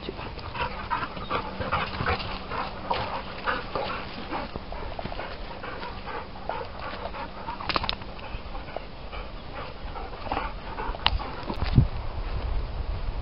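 Dogs panting as they trot along the path, with footsteps on leaf-littered ground and a dull bump near the end.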